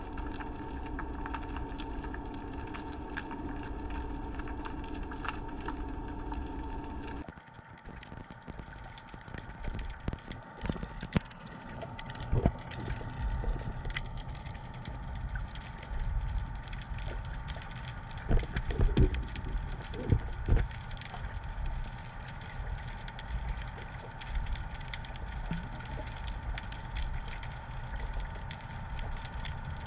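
Underwater sound through a GoPro's waterproof housing. A steady hum with a few fixed tones changes abruptly about seven seconds in to a low rumble with crackling and scattered sharp knocks, which bunch together around the middle.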